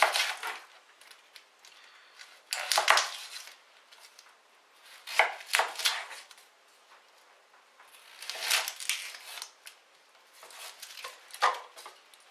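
Kitchen knife cutting through an onion against a chopping board, in about five separate bursts of crunchy strokes a couple of seconds apart; the blade is one the cook thinks probably needs sharpening.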